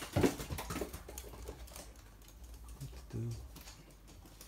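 Toy poodle's claws clicking and pattering on a hard floor as it walks about, with a louder knock at the very start and a brief low sound about three seconds in.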